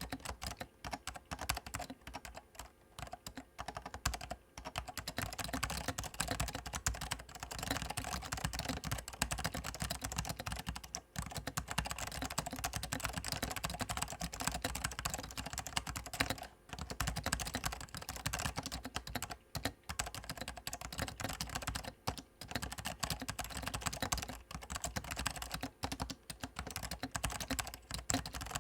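Fast, continuous typing on an Apple M0116 keyboard with Alps SKCM Orange switches on the letter keys and Salmon switches on the modifiers, its PCB removed and the switches handwired, which gives a bassy, almost dampened clack. The keystrokes run on with a few brief pauses.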